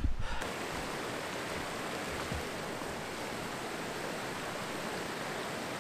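Mountain stream rushing and cascading over rocks, a steady, even rush that starts about half a second in.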